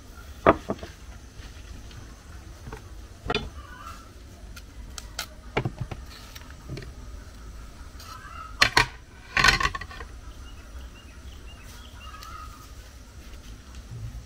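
Scattered knocks and clinks of hand food preparation: a wooden rolling pin on a board and a kitchen knife against a plate and chopping board. The loudest knock comes about half a second in, and a cluster of clatters comes around nine seconds.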